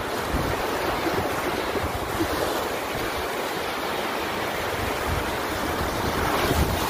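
Ocean surf washing steadily onto a sandy beach, with wind rumbling on the microphone.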